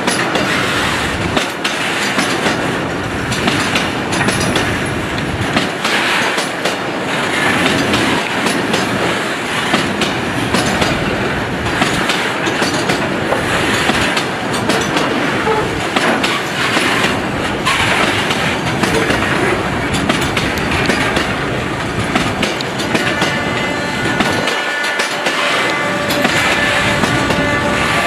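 Freight train of tank wagons rolling past close by, its wheels clattering over the rails in a continuous loud rumble. A steady high tone joins in near the end.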